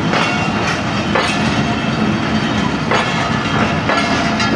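Passenger train coaches rolling past close by on the next track: a steady rumble of wheels on rail, with a sharp clack every second or so as wheels cross rail joints.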